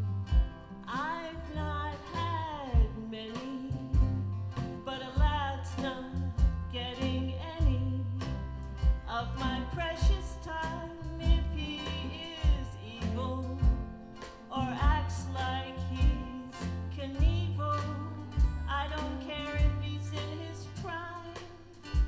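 Live country band playing an instrumental break: a lead line of bending, sliding notes over bass and a steady kick-drum beat.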